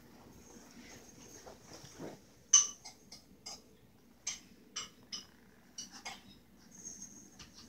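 Six-week-old Maltese puppies at play: about eight short, sharp, high squeaks, spread from a third of the way in to near the end, over a faint thin high tone.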